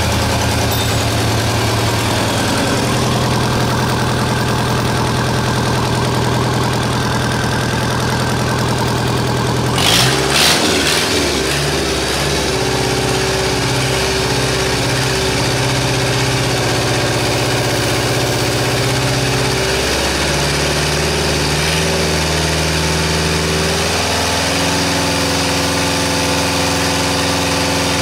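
Deutz F4L1011 four-cylinder diesel engine running on a stand during its run-in, its speed changing in steps several times. A brief louder burst comes about ten seconds in.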